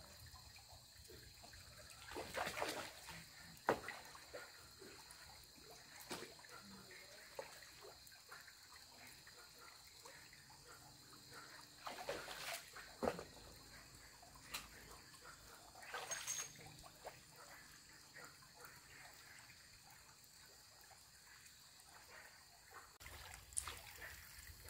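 Water splashing and trickling in small, scattered bursts a few seconds apart.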